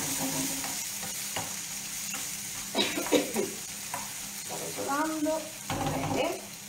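Diced zucchini sautéing in a frying pan: a steady sizzling hiss, with a utensil stirring and scraping the pan in irregular strokes, loudest near the middle and toward the end.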